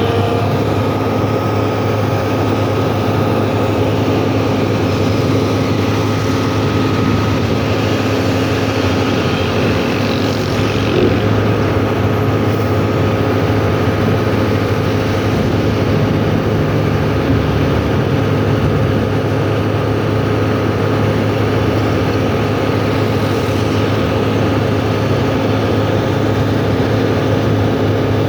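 Excavator engine running steadily under load, a continuous low machine drone with a few steady whining tones above it.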